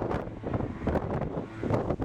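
Wind buffeting the microphone in uneven gusts, rising and falling in loudness.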